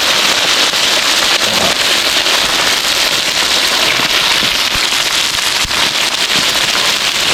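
Beef searing in a large hot pan over a wood fire, sizzling and crackling steadily and loudly.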